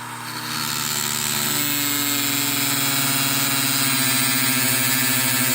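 A handheld rotary tool running at a steady high speed, cutting the metal retaining ring squished onto the back of a euro lock cylinder. About half a second in, the whine gets louder and a harsh hiss rises as the wheel bites into the metal.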